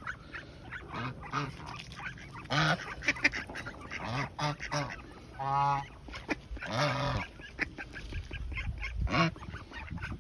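Geese honking repeatedly, with ducks calling among them.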